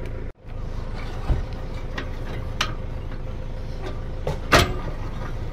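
Holden ute engine idling steadily while a trailer is hitched to it, with a few sharp metal clanks from the trailer coupling and jockey wheel being handled. The loudest clank comes about four and a half seconds in.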